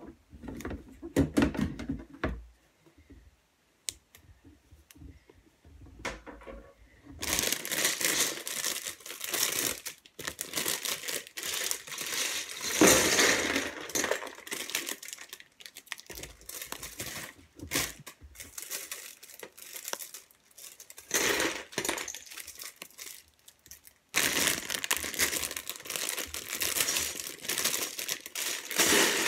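Clear plastic bags of LEGO bricks crinkling as they are handled and emptied, with loose plastic bricks clattering into a plastic bin. The first several seconds hold only a few scattered knocks; the dense rustling and clatter begin about seven seconds in and run on, with a brief lull near the end.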